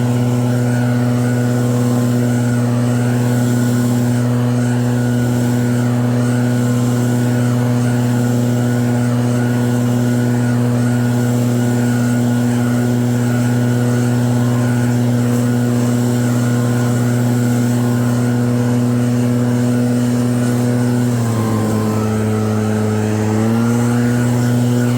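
EB7660RED snow blower running steadily with an even hum. Near the end its pitch sags for about two seconds and then climbs back, as if the machine briefly slows under a load of snow.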